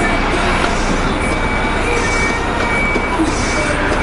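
Steady low rumble of an idling diesel truck engine, with a vehicle's reversing alarm beeping in a regular run of high beeps, about three every two seconds.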